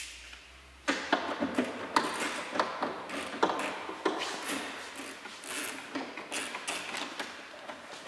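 Irregular clicks and clinks of hand tools being handled, with footsteps on a workshop floor; no steady ratchet rhythm.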